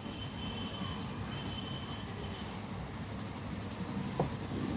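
Green coloured pencil scratching steadily on paper as an area of a drawing is shaded in.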